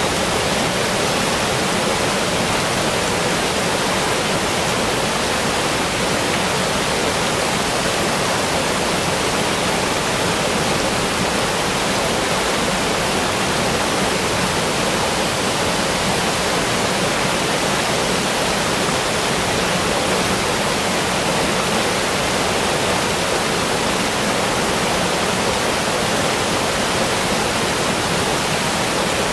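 Steady, unbroken rushing noise, spread evenly from low to very high pitches, with no separate sounds in it.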